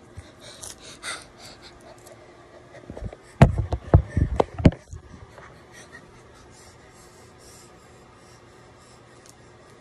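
A phone being handled and set down on a bed, with faint rustling, then a quick cluster of heavy bumps and knocks on the microphone about three to five seconds in. After that only quiet room noise.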